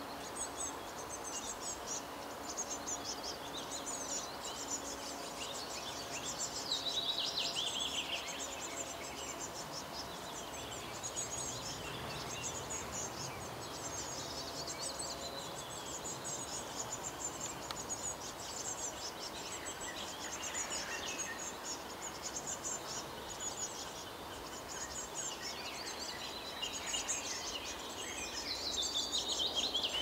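Nestling birds chirping rapidly and continuously in a high pitch, swelling twice into louder chirping that falls in pitch, a few seconds in and again near the end.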